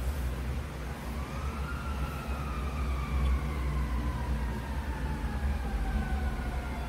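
Emergency-vehicle siren wailing: a tone that rises quickly about a second in, then falls slowly over several seconds. It sounds over a steady low hum.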